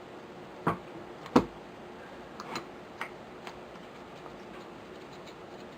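Sharp clicks and clacks of a Savage Model 64 semi-automatic rifle's action parts being fitted back together by hand. Two louder clacks come about a second in, then a few lighter clicks.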